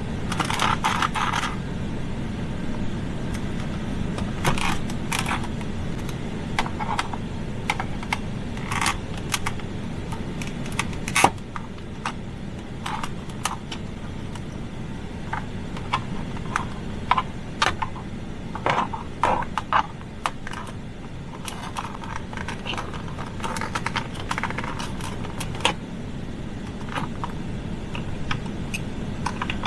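Hands and hand tools working on the truck's plastic center console latch parts: irregular clicks, taps, rattles and scrapes of hard plastic and metal, with a sharper knock about 11 seconds in. A steady low hum runs underneath.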